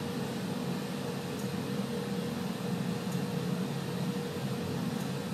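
Steady hiss and low rumble of a glassblowing bench burner's flame as glass is heated in it, with a faint steady hum.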